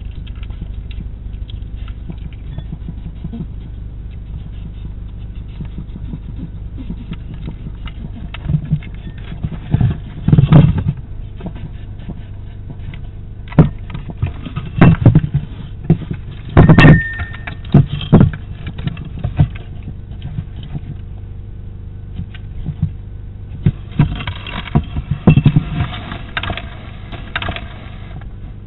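Hedgehog moving about a feeding station, knocking and scraping against the plastic food bowls in irregular clatters, which start about eight seconds in and bunch together near the end. A steady low hum runs under them.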